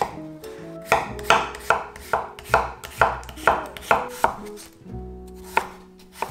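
Kitchen knife slicing a zucchini thinly on a wooden cutting board: a quick run of about ten cuts, each ending in a knock on the board, then two single cuts near the end.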